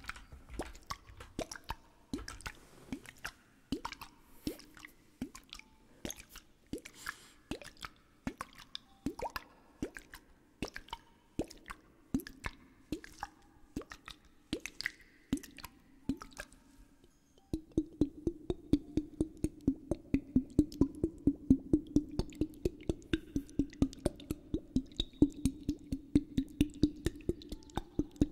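Light, regular taps on a storm glass, a sealed glass vessel of liquid: about two a second at first, then from about two-thirds of the way in a louder, faster run of about four a second over a steady ringing note.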